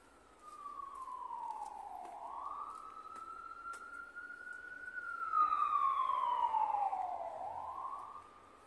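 Emergency vehicle siren wailing in the street: its pitch slides slowly down and swings quickly back up, twice. It grows louder as it approaches, is loudest a little past the middle, then fades near the end.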